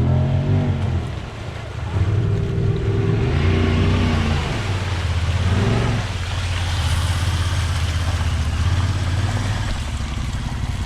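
Side-by-side UTV engine revving up and easing off several times under load. From about three seconds in, a rushing noise of tyres churning through mud and water joins it.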